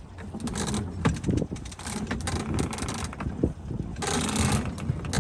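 Wind rumbling on the microphone aboard a sailboat, with scattered clicks and knocks of lines and deck fittings being handled, and a brief hiss about four seconds in.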